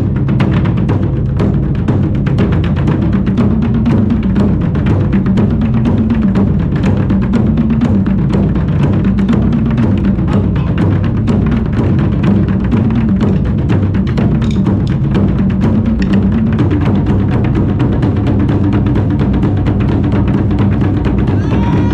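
Drums played live in a fast, dense, steady rhythm.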